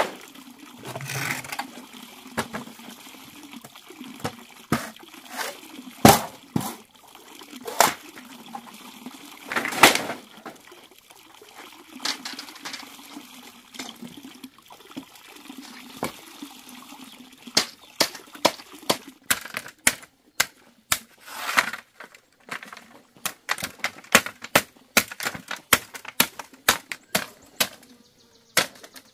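Machete striking and splitting green bamboo: a few spaced sharp knocks and cracks, then a quick run of crisp cracks and taps in the second half as the pole is split into strips.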